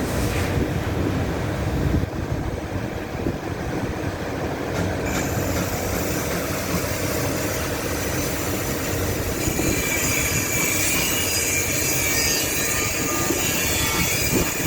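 TIG welding arc on stainless steel: a steady hiss over a low rumble, the hiss growing sharper and brighter about five seconds in, with a fine crackle later on.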